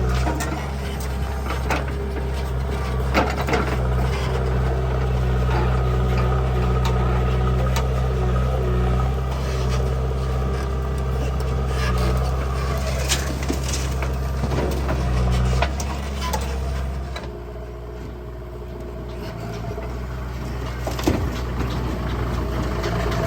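Heavy diesel machinery engine running steadily, with scattered knocks and clanks. The engine note changes and the sound drops off about two-thirds of the way through, then builds back up near the end.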